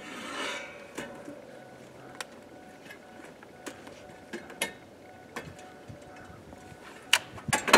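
Scattered clicks and knocks of a chair being handled on a deer-stand platform, with a louder cluster of knocks near the end.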